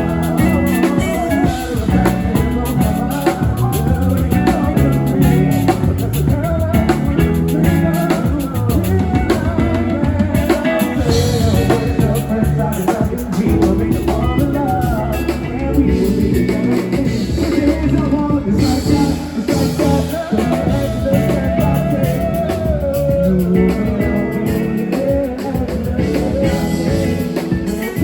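Recorded music with a steady drum-kit beat, bass and guitar, and some singing.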